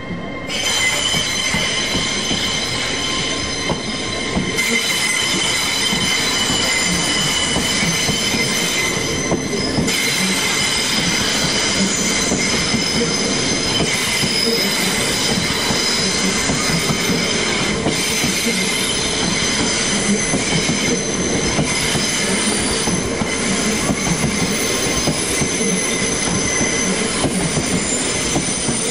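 LNER Azuma train rolling slowly past, its wheels squealing in several steady high-pitched tones over a continuous rolling rumble.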